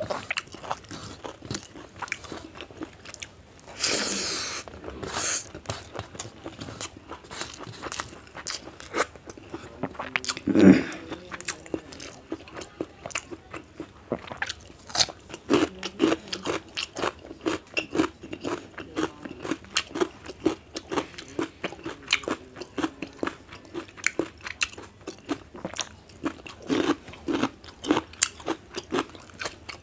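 Close-miked eating by hand: steady chewing and crunching with many small wet clicks, as rice, boiled egg and raw cucumber are eaten. There is a breathy hiss about four seconds in, and a short, louder low sound about eleven seconds in.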